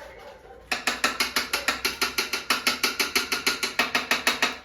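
A fast, even run of mechanical ratchet-like clicks, about eight a second, starting abruptly under a second in and cutting off just before the end.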